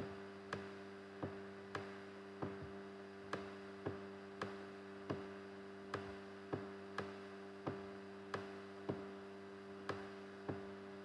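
Steady electrical hum with a row of short clicks, about one and a half a second, slightly uneven.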